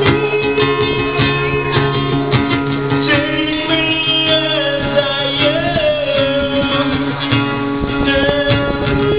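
A live band playing, led by a strummed acoustic guitar, with a wavering melody line over it from about three seconds in.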